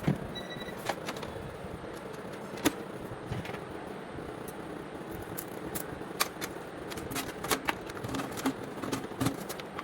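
Scattered sharp clicks and light taps of small hard objects being handled, over a steady background hiss, with a short high beep about half a second in.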